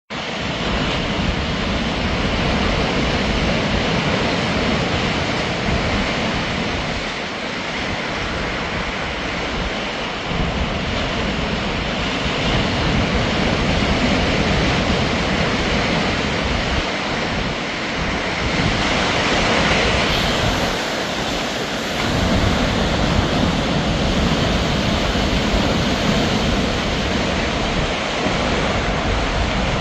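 Large Lake Superior waves crashing against and over rocks, a continuous loud surf wash with wind rumbling on the microphone. A bigger crash swells up about two-thirds of the way through.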